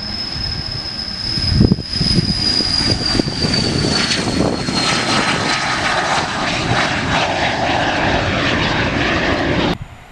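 A small business jet's two rear-mounted turbofan engines at takeoff power as it rolls and lifts off past, a loud engine rush under a high whine that falls in pitch as the jet goes by. The sound cuts off suddenly near the end.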